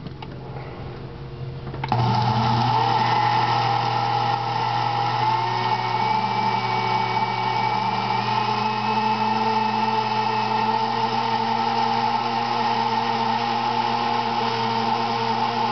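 Glass-jar countertop blender running, its blades churning a thick fruit smoothie. The blender gets much louder about two seconds in, then runs steadily with a slight rise in pitch in the middle.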